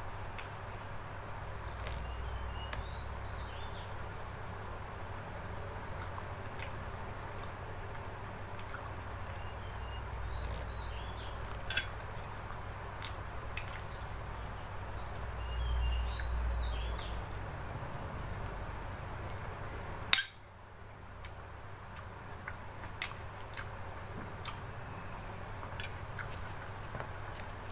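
Close-up eating sounds: chewing with scattered light clicks and clinks of cutlery against a dish, and one sharp knock about twenty seconds in.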